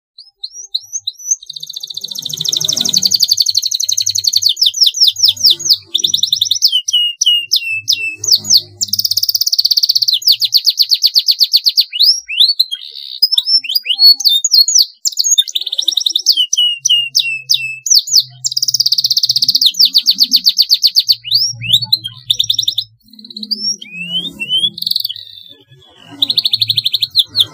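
Domestic canary singing a long song of rapid rolling trills broken by falling sweeps of whistled notes, with a few brief pauses.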